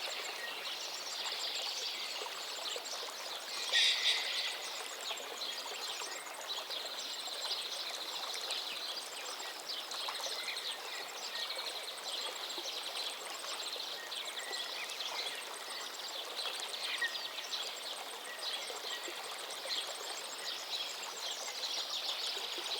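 Natural outdoor ambience: a steady hiss like running water, with small birds calling and fast high trills throughout, and one louder bird call about four seconds in.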